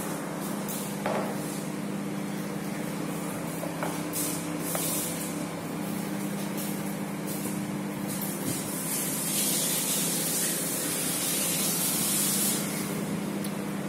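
A steady mechanical hum over a layer of hiss, with a louder high hiss from about nine to twelve and a half seconds in.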